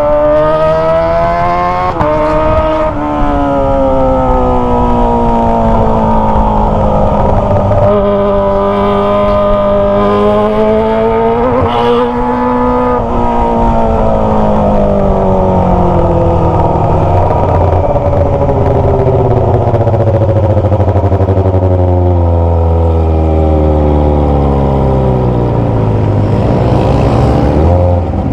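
Kawasaki ZX25R inline-four running through a Toce aftermarket exhaust under way. The engine pitch climbs, drops at a gear change about two seconds in, then climbs again for several seconds. It falls away steadily as the bike slows, and there is a short rev near the end.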